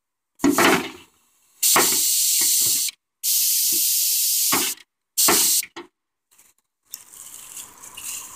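Compressed air blasting out of the pneumatic control valves as the snow plow's air cylinders are worked from the air tank's reserve, with the engine off. There are four loud hisses of about half a second to a second and a half each, with a thud at the start of each and silence between, then a couple of short puffs.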